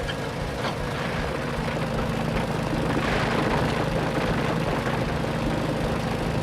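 Steady low engine drone of a road roller running. It cuts off abruptly at the end.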